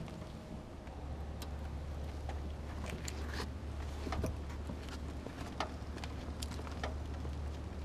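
Footsteps and the light wheels of an Aerolite 103 ultralight rolling over concrete, with scattered light clicks and knocks from the airframe being pushed by hand, over a low steady rumble.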